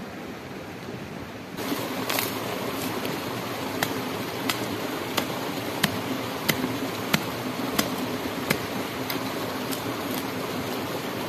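A small stream running steadily, with sharp strikes of a hand tool into the ground at its edge, about one and a half strokes a second.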